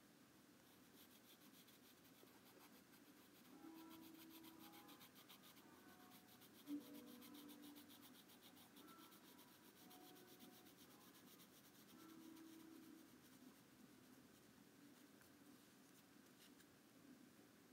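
Faint scratching of a graphite pencil on lined paper in rapid short strokes, shading in an eye's iris; the strokes stop near the end.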